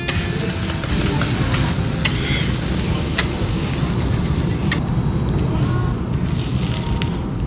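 Lobster sizzling on a hot teppanyaki iron griddle, a steady frying hiss with a few sharp metal clicks scattered through it.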